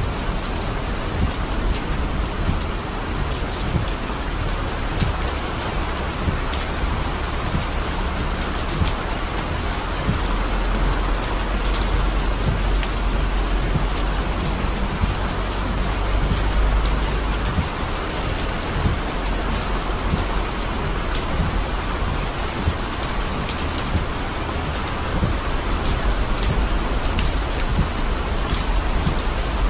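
Heavy rain falling on a car's roof and windshield, heard from inside the moving car: a steady hiss with many sharp drop hits over a low rumble that grows louder for several seconds in the middle.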